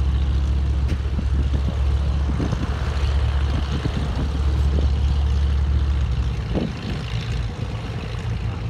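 Engine running at a steady idle: a low, even-pitched hum that drops away about six seconds in.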